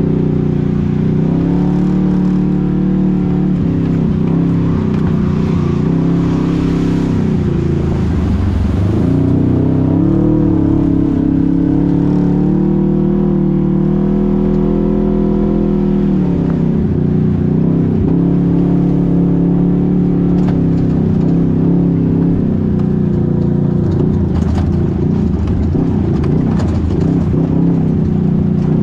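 An engine running continuously, its pitch rising and falling several times as the speed changes.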